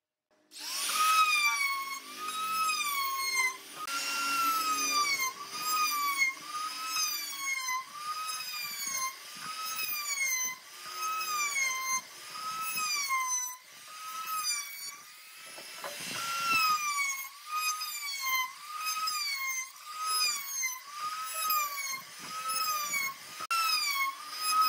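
Compact trim router running with a roundover bit, cutting the edge of a wooden ring: a high motor whine that rises and falls in pitch about once a second as the bit bites and eases, over the rasp of the cut. It starts about half a second in.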